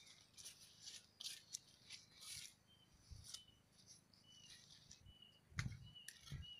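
Faint footsteps and rustling through grass and leaves, with crackly clicks and a few soft thuds. A few short high chirps come in from about the middle on.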